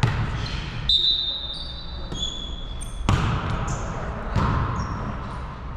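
Volleyball being played on a gym court: about four thumps of the ball being hit or striking the floor, with high sneaker squeaks on the court between the first and third thumps.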